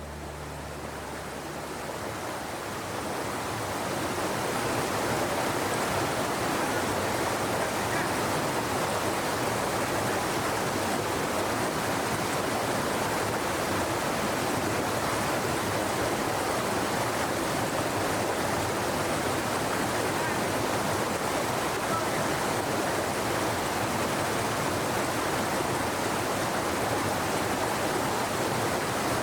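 Flowing stream water, a steady rushing that swells over the first few seconds and then holds even.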